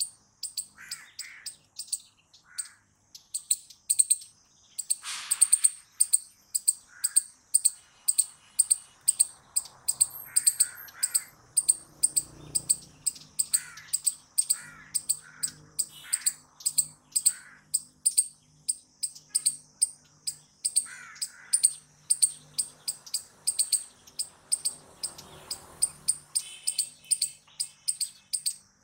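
Palm squirrel calling: a long run of short, sharp, high-pitched chips, about two to three a second, that sound bird-like, with softer lower chirps scattered between them.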